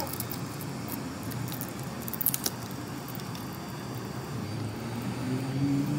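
Heat gun blowing a steady stream of hot air, with a few sharp clicks about two seconds in as a hobby knife scrapes and chips away the cracked back glass of an iPhone 11.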